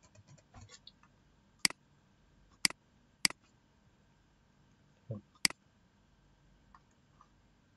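Computer mouse button clicking: four sharp single clicks spaced about a second apart, with a few faint key taps in the first second. A short low sound comes just before the last click.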